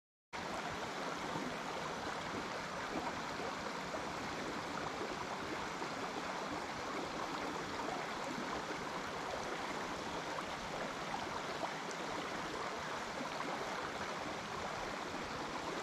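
Steady rushing of a creek's flowing water, cutting in abruptly just after the start and holding at an even level.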